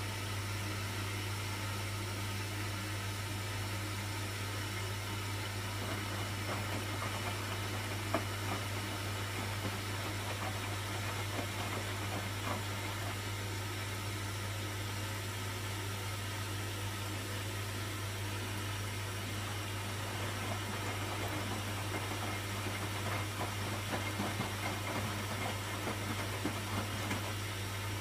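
Hoover front-loading washing machine tumbling wet laundry in its drum on a short Refresh wash: a steady motor hum and wash noise, with occasional light knocks, a few more near the end.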